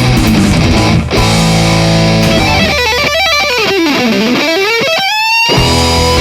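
Heavy rock theme music led by distorted electric guitar. Midway, a guitar note slides down in pitch and back up, then the full band comes back in under a held, wavering guitar note.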